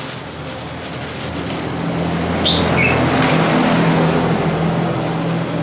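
A vehicle engine running with a low hum, growing louder over the first couple of seconds and then holding steady. A bird gives a short two-note chirp about two and a half seconds in.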